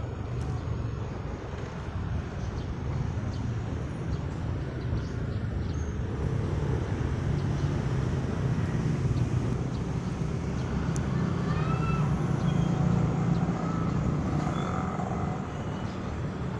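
Steady low outdoor rumble with no speech, a little louder from about six seconds in, with a few faint short high chirps near the end.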